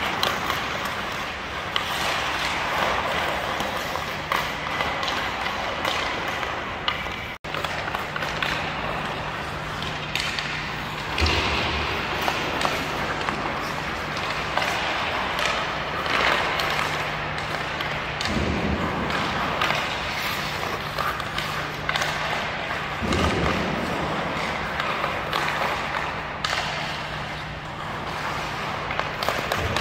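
Hockey skate blades scraping and carving on rink ice, with light taps of stick on puck, over a steady low rink hum. A few dull thumps stand out, and the sound cuts out for an instant about seven seconds in.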